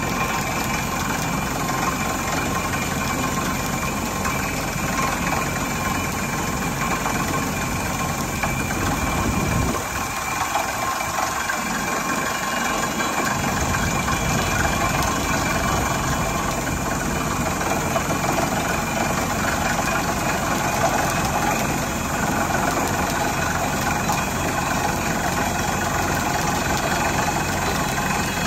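Crawler-mounted well-drilling rig running steadily while it drills a deep water well, its engine noise mixed with the clatter of the drilling and dust-laden air blowing out of the borehole. The low rumble drops out for a few seconds about ten seconds in, then returns.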